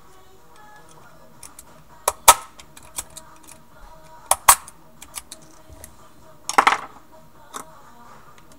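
Sharp metallic clicks and clinks of a screwdriver and small parts against an airsoft AK's metal gearbox shell as it is taken apart, with a short rattle about six and a half seconds in.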